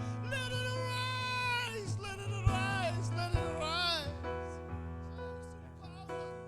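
Worship music: steady held chords and bass under a voice singing long, wavering notes. The music grows quieter over the last couple of seconds.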